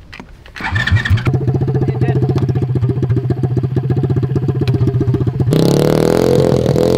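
Small petrol engine of a home-built wheeled boat buggy being electric-started: it cranks and catches about a second in, then idles with an even, rapid putter. About five and a half seconds in it gives way suddenly to louder running with rising pitch as the machine is revved and driven off.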